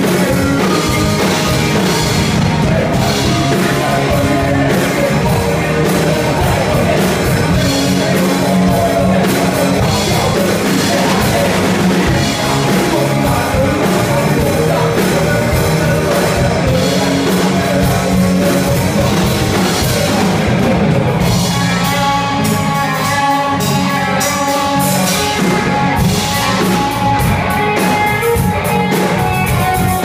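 Live rock band playing a song: electric guitar, bass guitar and drum kit with a male singer. The band's sound changes about two-thirds of the way through, with less low end.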